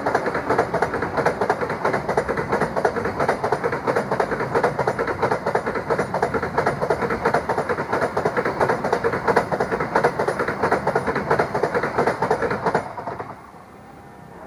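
Train rushing past, its carriage wheels clattering rapidly over the rail joints under a steady rolling roar. The sound drops away abruptly about 13 seconds in as the last car clears.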